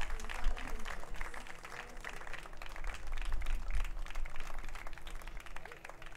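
Spectators applauding the end of a tennis match: scattered hand clapping from a small crowd.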